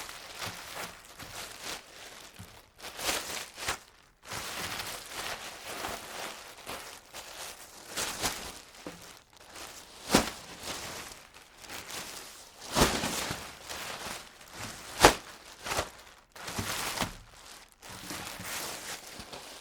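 Plastic garbage bag being handled, crinkling and rustling on and off, with several sharper crackles; the loudest comes about fifteen seconds in.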